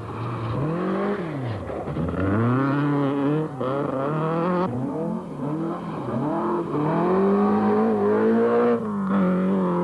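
Rally car engines at full throttle, pitch climbing and dropping back at each gear change over and over, with abrupt jumps from one car's run to the next.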